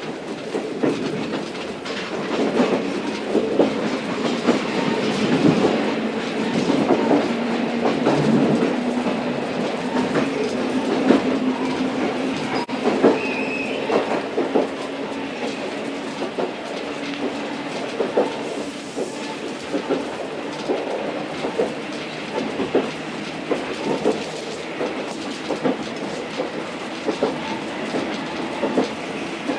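Locomotive-hauled passenger coach running along the line: a steady rumble with the wheels clicking over rail joints again and again.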